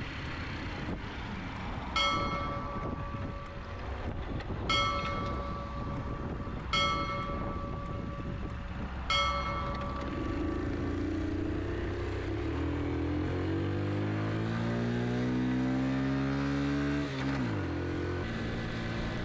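A bell rings four times, each stroke dying away, over the low running of a Honda Super Cub's 50cc single-cylinder four-stroke engine. About halfway through the engine pulls away, its note climbing steadily for several seconds, then drops sharply at an upshift and runs on steadily.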